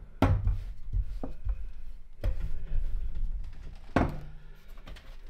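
Rolling pin rolling over a thin sheet of dough on a wooden tabletop: a low rumble in two passes, with a few knocks. The loudest knock comes about four seconds in, as the pin is set down on the table.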